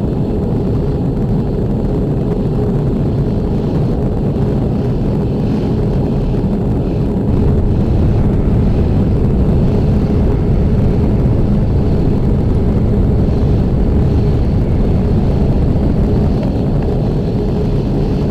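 Steady low roar of jet aircraft in flight, engines and rushing air, with a faint steady hum in it; it grows slightly louder about seven seconds in.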